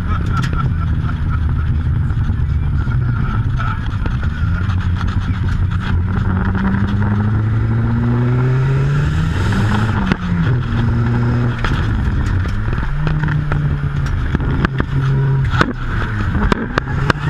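Nissan 200SX (S14) engine heard from inside the cabin, accelerating with its pitch climbing, dropping at a gear change about halfway, then climbing again and held with short dips near the end.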